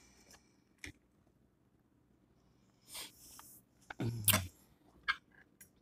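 Quiet eating sounds from a person at a meal: a faint click, a short nasal breath about three seconds in, a brief low 'mm'-like sound with the mouth closed around four seconds in, and a few small mouth clicks near the end.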